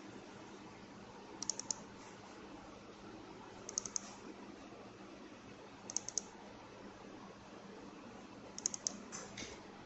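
Small sharp clicks in four quick runs of three, about two seconds apart, with a few softer clicks after the last run.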